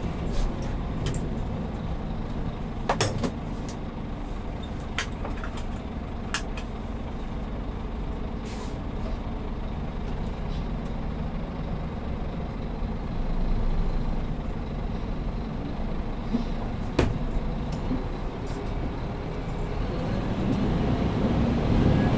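Scania P360 dump truck's diesel engine running steadily, heard from inside the cab, with several short sharp clicks and knocks scattered through it. The engine grows louder near the end.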